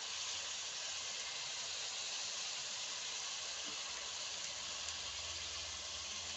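Steady, even hiss from a pot of borscht cooking on a gas stove.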